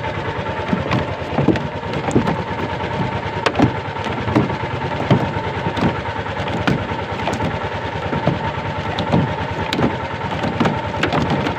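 Small fishing boat's motor running steadily, with scattered light knocks over it.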